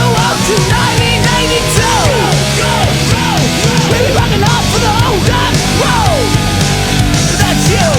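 Loud heavy rock music with a steady driving beat.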